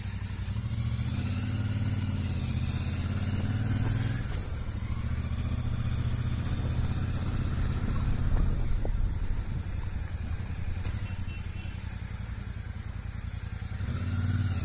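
Motorcycle running along a road, a steady low engine rumble.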